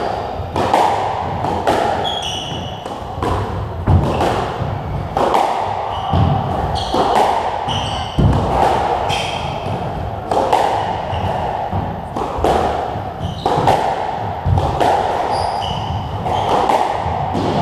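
Squash rally: the ball is struck by rackets and smacks off the walls in sharp cracks about every second, each ringing briefly in the enclosed court, while shoes squeak on the wooden floor between shots.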